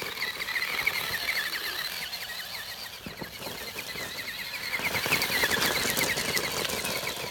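Small RC truck driving over grass and gravel, with crackling tyre noise that grows louder about five seconds in as it crosses the gravel. Behind it runs a fast, steady chirping, about ten chirps a second.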